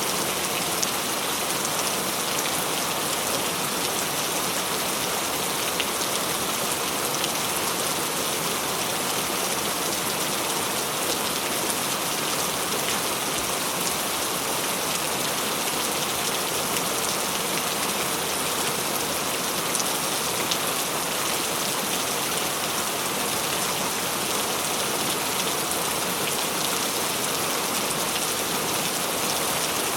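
Steady, even rainfall with many small drops pattering.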